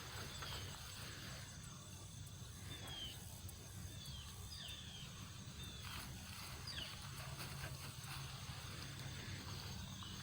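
Beagles baying in the distance while running a rabbit: a faint, irregular series of short, high cries, each falling in pitch, over a low steady rumble.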